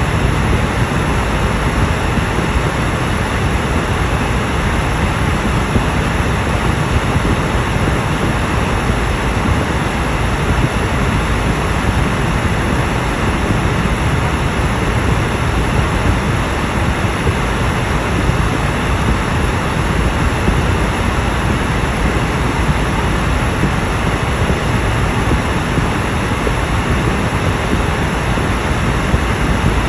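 Steady road noise inside a car's cabin as it drives along a highway: a constant low rumble of tyres and engine with a hiss over it.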